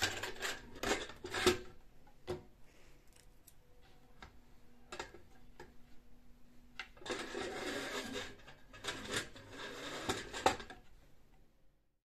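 Household objects being handled: scattered light knocks and clicks, with a stretch of rubbing or rustling about seven seconds in; the sound cuts off just before the end.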